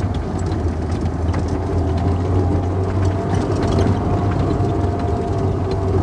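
Car engine working hard as the car climbs a slope, heard from inside the cabin. Its hum holds steady, with a slight rise in pitch midway, and light rattles and ticks come from the rough dirt track.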